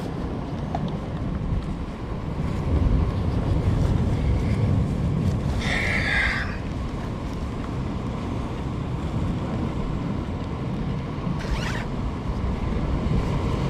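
Gusty wind buffeting the microphone, with sea surf behind it. A nylon rain jacket rustles as it is put on and fastened, with a brief louder rustle about six seconds in and another near the end.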